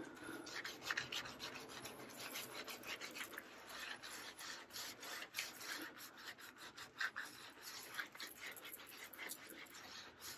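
Exfoliating bath gloves scrubbing quickly side to side across the skin of the chest and neck: a faint, rasping rub of many rapid, even strokes.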